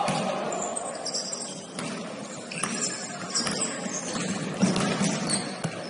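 Basketball game play on a gym court: sneakers squeaking on the hardwood and several thuds of the ball bouncing, about one a second, over the hall's steady background din.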